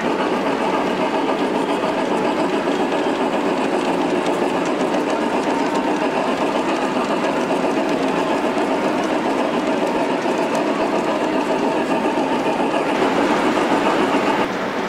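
G scale model steam locomotive and train running on the layout track with a steady, fast mechanical clatter of motor, gears and wheels. It grows a little louder near the end, then drops.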